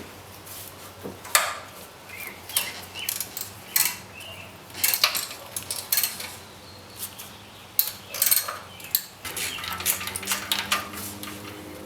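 Metal hand tools and engine parts clinking and knocking against each other in irregular sharp strikes, some with a short ring. A faint steady hum comes in about nine seconds in.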